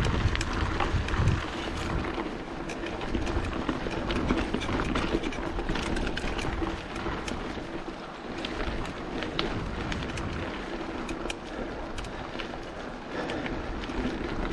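Mountain bike being ridden along a muddy dirt track: steady tyre noise with many small clicks and rattles from the bike, over a low rumble.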